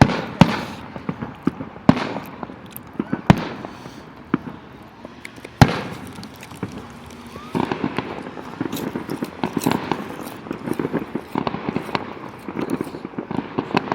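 Aerial fireworks going off: a few single sharp bangs a second or two apart, then about halfway through a denser run of rapid pops and crackling.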